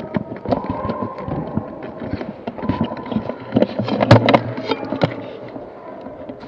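Airsoft guns firing during play: irregular sharp clicks and snaps of shots and BBs striking, thickest about four seconds in.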